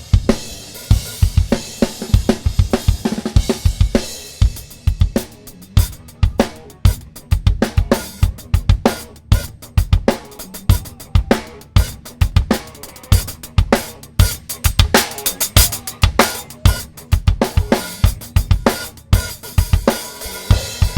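Recorded rock drum kit playing a busy groove, isolated from a live multitrack, with steady kick drum, snare hits, hi-hat and cymbal wash. The track is heard through a Calrec PQ1549-style equaliser.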